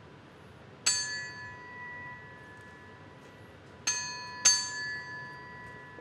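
Bell-like metal percussion struck three times: once about a second in, then twice close together near the end. Each strike rings on with several clear, lasting high tones over a faint ring left from earlier.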